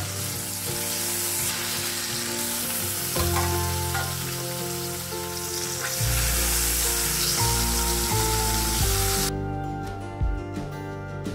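Spice-rubbed pork tenderloins sizzling in hot oil in a cast-iron skillet as they brown, with background music underneath; the sizzling cuts off near the end.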